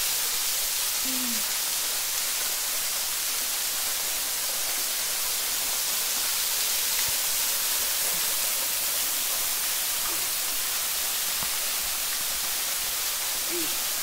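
Waterfall: a thin cascade falling down a rock face into a shallow pool, making a steady, even hiss.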